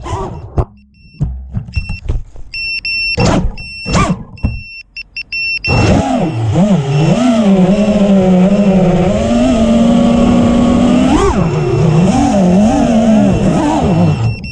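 FPV racing quadcopter's brushless motors, first in short throttle blips with a steady high electronic beep, then running continuously from about six seconds in with the whine rising and falling as the throttle changes. The motors cut off abruptly near the end.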